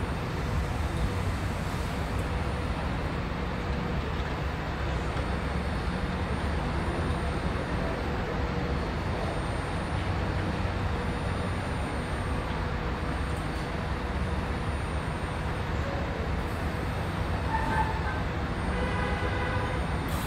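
Steady low rumble with a faint constant hum of a subway station. Near the end, faint whining tones start to rise as an approaching train's traction motors come within earshot.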